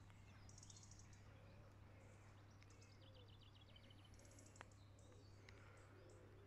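Faint birdsong from small birds in waterside hedges: quick high trills and runs of repeated notes, with scattered chirps, over a low steady hum. A single sharp tick comes about halfway through.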